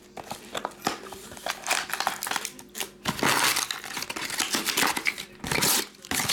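Trading-card box being opened by hand: cardboard lid lifted, then foil and plastic pack wrappers crinkled and torn in uneven bursts.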